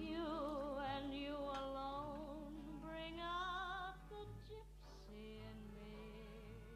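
Music: a woman singing long held notes with wide vibrato, growing quieter after about four seconds.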